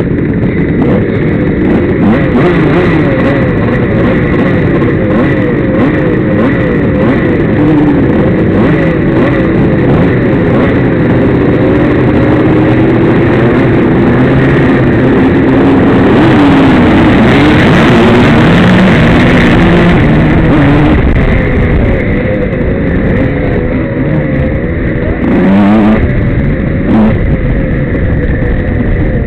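Several pre-1983 motocross motorcycles revving together, close to the rider's own bike, with pitches rising and falling over one another; the engines get louder about halfway through as the bikes are pushed hard, then ease a little.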